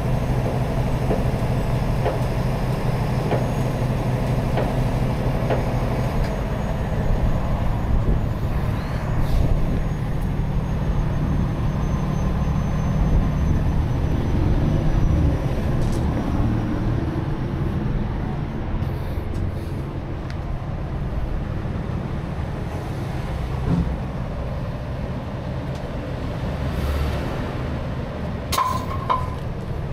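Heavy rotator tow truck's diesel engine running steadily with a low hum. A few sharp knocks come near the end.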